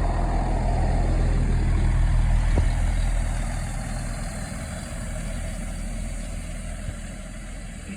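Class 165 diesel multiple unit running into the platform, its diesel engines giving a steady low hum with a rushing sound that dies away after about three seconds, the whole sound growing quieter toward the end.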